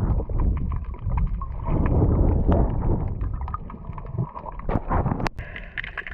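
Muffled water sloshing and gurgling around a waterproof action camera, with scattered sharp clicks and knocks.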